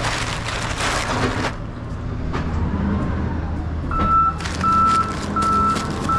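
A vehicle's backup alarm beeping steadily, about three beeps every two seconds, starting about four seconds in, over a low steady engine hum. A burst of rustling noise fills the first second and a half.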